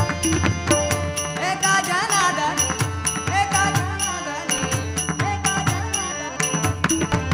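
Marathi devotional bhajan: a lead singer's voice carrying the melody over a steady percussion beat and a held low drone. The singing comes in about a second and a half in and fades out near the end, leaving the instruments.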